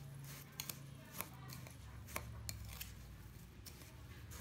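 Spoon scraping and clinking against a glass bowl while stirring crushed biscuit crumbs moistened with melted butter: faint, irregular ticks and scrapes. A low steady hum runs underneath.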